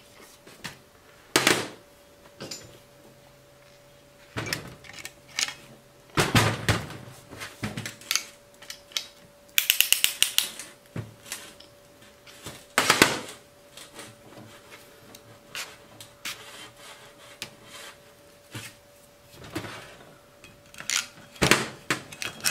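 Metal hydraulic-cylinder parts and hand tools knocking and clinking on a steel workbench, with a quick run of rapid clicks about ten seconds in.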